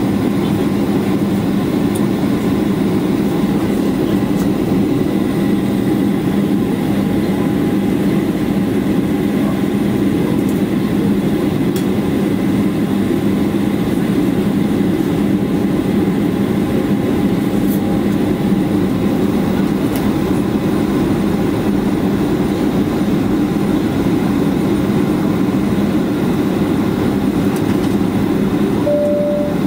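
Steady cabin noise of a Boeing 737-800 airliner on approach: engine and airflow noise with a constant low hum. Near the end a two-note falling chime sounds, the cabin PA chime ahead of a crew announcement.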